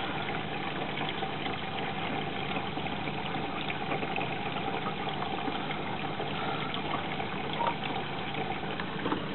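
Hoover Electra 540 washing machine running through its wash fill: a steady rush of water coming in, with an even machine hum underneath.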